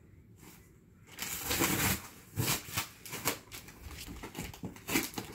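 Cardboard shipping box being opened by hand: a loud scraping rustle of cardboard flaps and packing tape about a second in, then several short crinkles and knocks of cardboard and plastic being handled.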